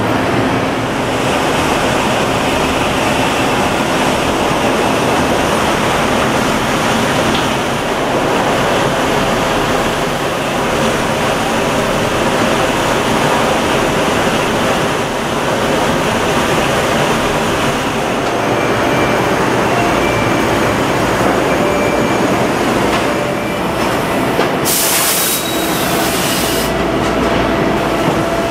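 Steady, loud machinery noise of a steel foundry floor, with a short blast of high hissing air about 25 seconds in.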